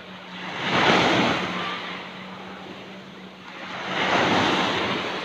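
Small waves breaking on the shore twice, once about a second in and again about four seconds in, each swelling up and washing back. A faint steady hum runs underneath.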